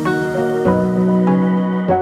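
Background music of slow, held chords, with the notes changing about every second.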